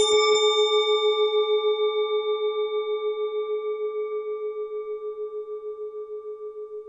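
A single struck bell-like tone rings out from a sharp strike and fades slowly, with a steady wavering pulse in its ring.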